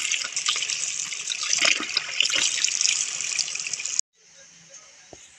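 Tap water running and splashing into a bowl of button mushrooms as hands rub them clean under the faucet. It cuts off abruptly about four seconds in.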